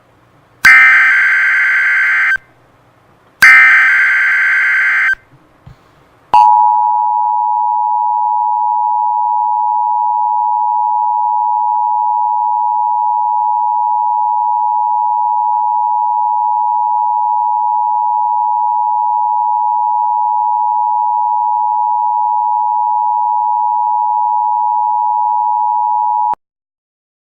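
Emergency Alert System tones: two buzzy digital bursts of the SAME data header, each about a second and a half, then the two-tone attention signal (853 and 960 Hz together). The attention signal holds one steady, loud tone for about twenty seconds and cuts off suddenly. It is the signal that an emergency message is about to be read.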